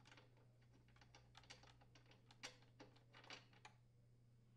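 Near silence with a few faint, scattered clicks and ticks as an old spark plug is unscrewed by hand from the leaf blower's cylinder and lifted out.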